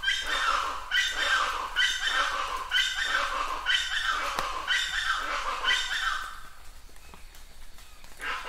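An animal calling over and over, about once a second, seven times in a row, each call dipping a little in pitch. The calls pause for about two seconds near the end.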